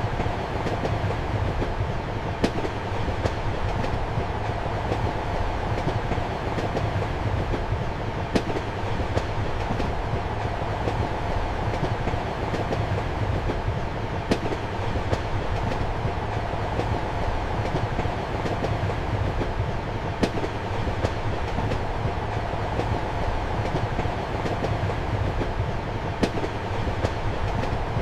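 Passenger train running, heard from inside a compartment: a steady rumble and hum with the clickety-clack of the wheels over rail joints. A sharp click comes about every six seconds.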